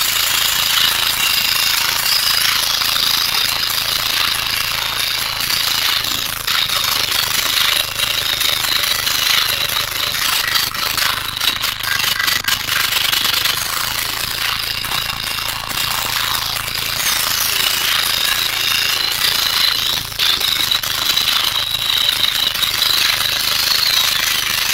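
Wall of subwoofers in a welded-up Nissan Almera SPL car playing bass at an extreme level. The pressure overloads the microphone into a steady, harsh, distorted rattle with air buffeting.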